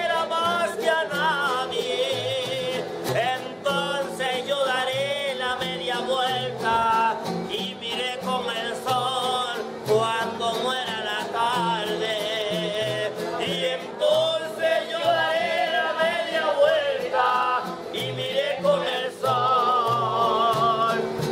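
A man singing loudly in phrases with a wide, wavering vibrato, over a steady low beat.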